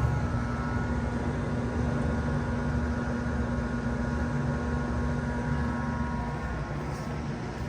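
1991 Bard Wall Aire 3-ton wall-hung heat pump shutting down in heat mode. Its strong low hum cuts off right at the start, and steady air noise and fan tones run on and fade out about six seconds in as the unit winds down.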